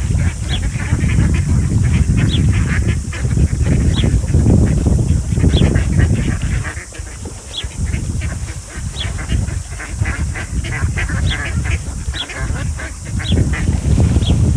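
A large flock of mallard ducks quacking: many short, sharp quacks overlapping several times a second, over a loud, uneven low rumble.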